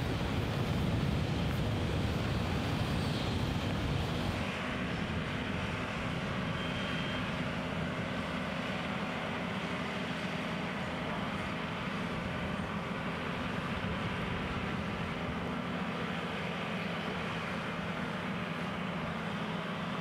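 Wind rumbling on the microphone, then after about four seconds a steady low engine hum from machinery at the work site, holding a few low tones.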